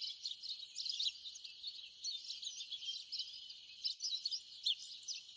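Faint background of small birds chirping, many short high calls overlapping one another.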